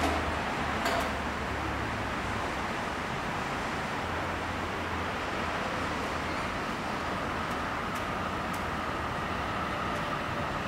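Steady outdoor background noise: distant road traffic and a low rumble on the microphone, with a couple of faint knocks in the first second and a faint thin whine in the latter part.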